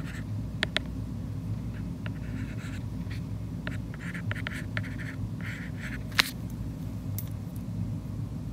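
Stylus writing on a tablet's glass screen: short scratchy strokes and light taps as letters are drawn, with one sharper tap about six seconds in. A low steady hum sits underneath.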